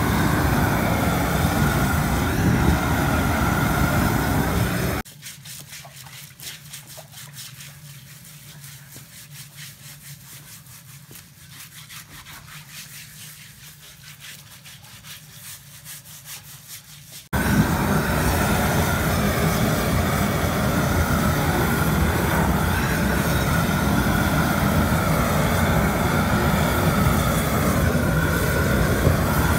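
A gas burner torch running with a loud, steady rush as it singes the hair off a slaughtered pig. It cuts out abruptly about five seconds in, leaving a quieter stretch of light clicks and handling sounds on the carcass. The torch's rush returns just as abruptly some twelve seconds later.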